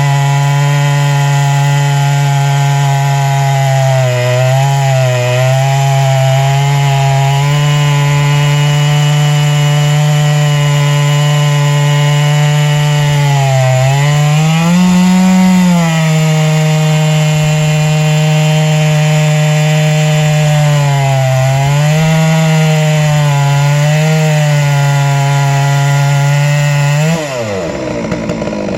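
Chainsaw on a chainsaw mill ripping a log lengthwise, its engine held near full throttle with the pitch sagging and recovering as the cut loads it. Near the end the revs drop sharply and climb straight back.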